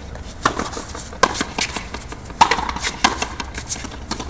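Frontenis rally: the rubber ball smacking off tennis-style rackets and the concrete front wall of an enclosed frontón, four loud sharp cracks about a second apart with lighter knocks between, ringing briefly in the court.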